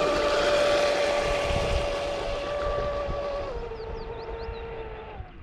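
Traxxas M41 radio-controlled speedboat running fast on a 6S battery: the steady high whine of its brushless electric motor and propeller over a hiss of water. The whine steps down in pitch about three and a half seconds in and fades near the end as the boat moves away.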